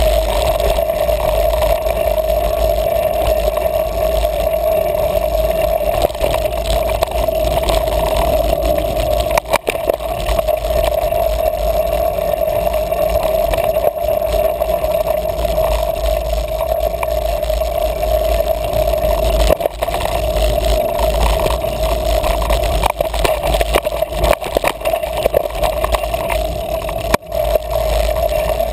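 Mountain bike riding over a dirt trail, heard through a GoPro camera's housing: a steady, muffled rumble of wind and tyres with a constant hum, and scattered knocks and rattles as the bike hits roots and rocks.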